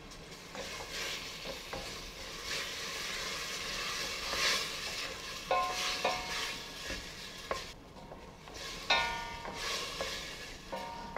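Diced beef sizzling in butter and oil in a stainless steel pot while a wooden spoon stirs and scrapes through it, with a brief ringing squeak twice. The cold, crowded meat has cooled the fat and is letting out its juices, so it partly simmers in liquid instead of searing hard.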